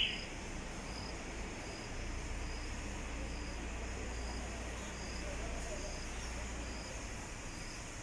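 A faint, high-pitched insect chirp repeating evenly, a little more than once a second, over a steady low rumble.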